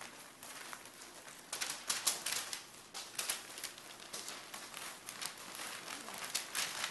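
Pyrenean Mastiff puppies' paws scrabbling and pattering over crinkly paper: a busy run of irregular light ticks and rustles.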